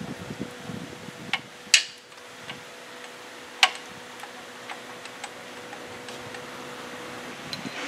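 A few sharp metallic clicks and taps from parts and tools being handled in the lathe's headstock housing, the loudest a little under two seconds in, with fainter ticks later, over a steady background hum.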